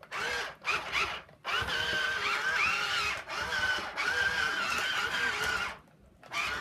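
Toy-grade RC skid-steer's small electric drive motors and gearing whining as it is driven and turned, in several stop-start bursts, the longest about two seconds, the pitch wavering and rising briefly partway through.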